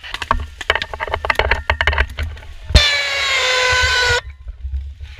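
Paintball markers firing in rapid, irregular pops. About three seconds in, a JCS Allias MKX paintball rocket launcher fires with one sharp shot, then the rocket's loud whistle, several tones sliding slowly lower for about a second and a half, cuts off abruptly.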